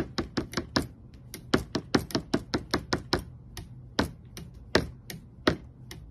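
Green-cheeked conure pecking and tapping its beak on the rubber cymbal pad of an electronic drum kit: a quick, uneven run of sharp taps, several a second, with a couple of brief pauses.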